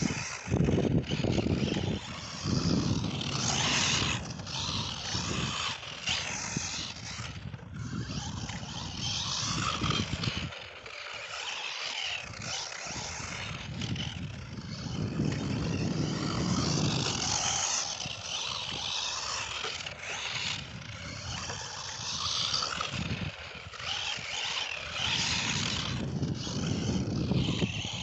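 Gusty wind on the microphone, with the electric Tamiya TL-01 RC car running on loose sandy dirt. The wind dies briefly near the middle.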